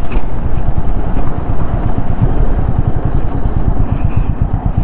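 Royal Enfield Meteor 350's single-cylinder engine running steadily on the move, under a heavy rumble of riding wind. The usual Enfield thump is muted, which the rider puts down to the bike being BS6-compliant.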